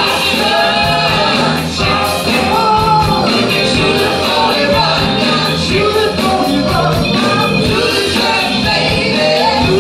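Live soul band playing with a steady drum beat: sung lead vocals over electric bass, keyboard and drum kit.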